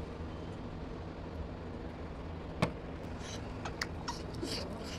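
Close-up eating sounds over a steady low background hum: one sharp knock about two and a half seconds in, as a drinking glass is set down on the table, then a few short wet clicks and smacks of chewing with the mouth.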